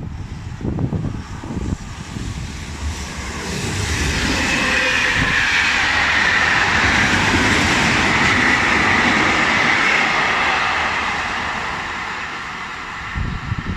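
Freight train running through a station at speed: a loud rush of wheels on rail that swells about four seconds in, holds, then slowly fades as the wagons pass. Wind buffets the microphone at the start.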